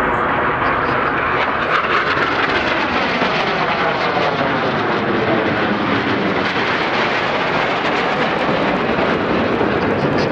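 Jet engines of the Frecce Tricolori's Aermacchi MB-339 trainers, Rolls-Royce Viper turbojets, loud and continuous as the formation passes overhead and splits apart in the bomb-burst opening. The noise has a swirling, wavering tone, with sweeps rising and falling through it as the jets spread out.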